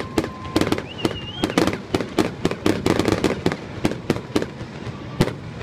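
Aerial fireworks with gold crackling shells: a dense, irregular run of sharp pops and crackles, several a second, with louder reports at the start and near the end.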